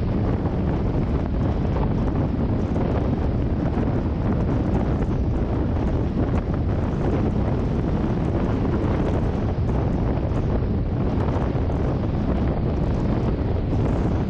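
Steady low rumble and hiss of a car driving on rain-wet streets, with road and tyre noise.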